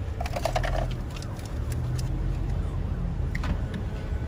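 A car's engine and road noise heard from inside the cabin while it moves slowly: a steady low rumble, with a few light clicks and knocks over it.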